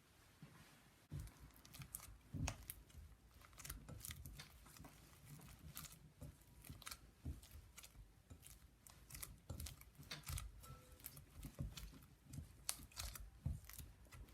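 Irregular small clicks, taps and rustles of hands handling things at close range, starting about a second in.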